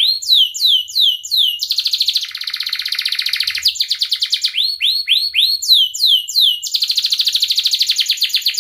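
Domestic canary singing a long unbroken song. Fast trills alternate with runs of sweeping whistled notes, about three a second.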